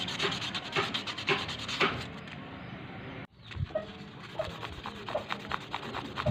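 Coconut-shell ring being sanded by hand on 400-grit sandpaper: quick, scratchy back-and-forth rubbing strokes, with a brief break a little past halfway.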